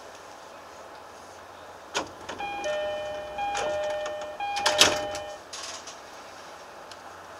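Steady train running noise. About two seconds in, a series of sharp metallic clanks begins. With them come two overlapping electronic chime tones, one higher and one lower, that sound on and off for about three seconds and then stop.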